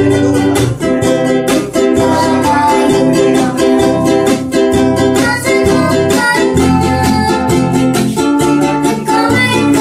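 A ukulele and a steel-string acoustic guitar strummed together in a steady rhythm, playing chords.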